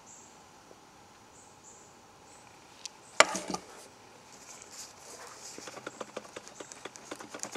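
Handling of a cardboard shipping tube: one sharp knock about three seconds in, then a run of light crackling and ticking as the tube is moved and worked open. Faint insects chirp underneath.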